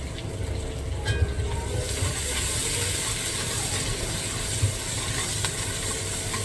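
Chopped onions frying in hot oil in a karahi, a steady sizzle that grows louder about two seconds in, with a couple of light knocks.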